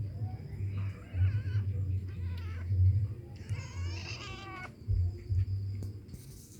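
Stray cat meowing several times, the longest and loudest call about three and a half seconds in, over a low rumble.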